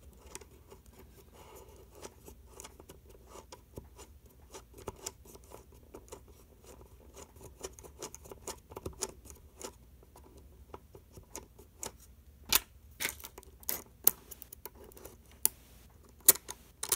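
Small metallic clicks and scraping as the bolts of a KeyBar key organiser are unscrewed by hand, with a few louder metal clinks near the end.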